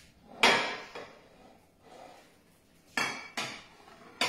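Kitchenware clattering: a sharp knock about half a second in, then three more knocks near the end, as utensils and cookware are handled around a frying pan.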